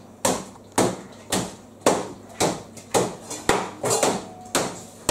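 Wooden rolling pin bashing biscuits in a plastic bag on a chopping board, crushing them to crumbs: steady sharp knocks about twice a second, with a few lighter taps between.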